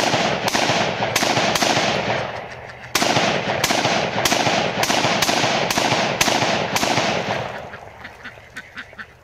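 Volley of rifle fire from several rifles (AK-47, SKS and AR-15) shooting at once: sharp shots about every half second with the crackle of overlapping shots and echo between them, a short lull about two seconds in, then tapering off to a few scattered shots near the end.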